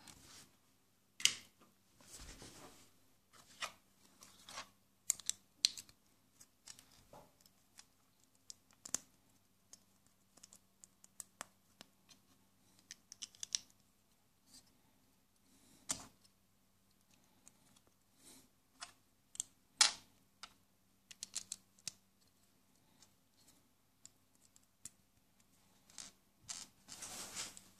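Plastic Lego and Mega Bloks bricks being handled and pressed together: irregular sharp clicks and snaps, with a few short rustling scrapes.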